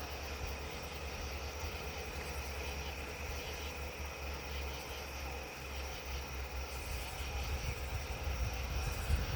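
A steady, low engine rumble, as from engines idling, with a faint steady whine above it. The rumble gets a little louder near the end.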